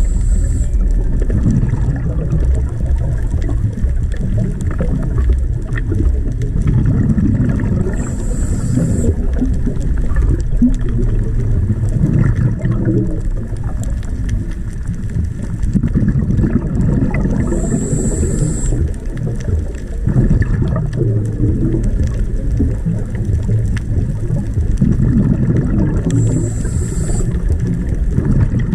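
Underwater sound of a scuba diver breathing through a regulator. A short hiss comes on each inhale, about every nine seconds, and a low, churning rumble of exhaled bubbles and water runs between them.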